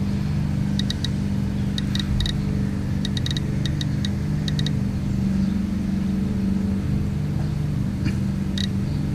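Steady low mechanical hum, with short high ticks from a GQ GMC-300 Geiger counter coming irregularly in small clusters as it registers radiation counts.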